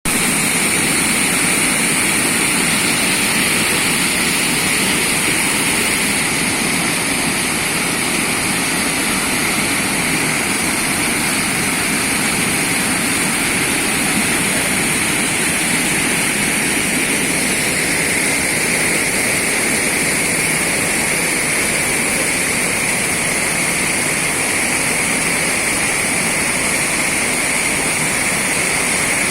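Waterfall: a loud, steady rush of falling water that stays unchanged throughout.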